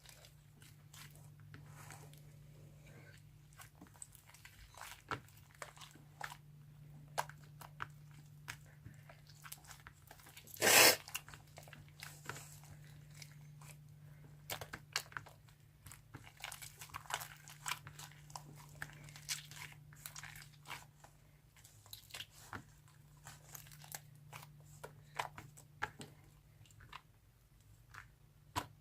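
Sponge slime being squished and played with by hand, making scattered crunchy crackles and small pops. There is one much louder crunchy burst about eleven seconds in.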